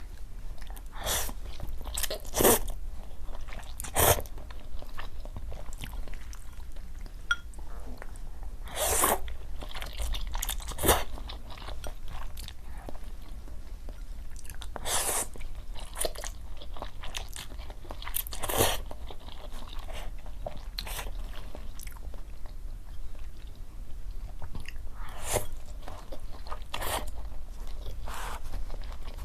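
Close-miked eating: a person biting and chewing food, with irregular sharp crunchy crackles every second or two.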